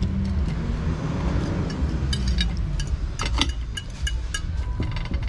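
A metal fork scraping and clinking against a plate, with several sharp ringing clinks in the second half, over a steady low rumble.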